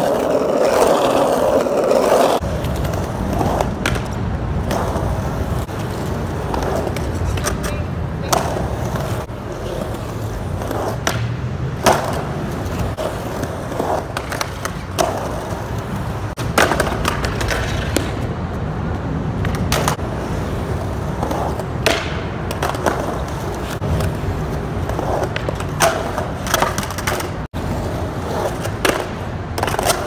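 Skateboard wheels rolling with a steady rumble, louder for the first couple of seconds over rough asphalt, then on a concrete skate park surface. Sharp clacks of the board striking the ground cut in every few seconds as tricks are tried.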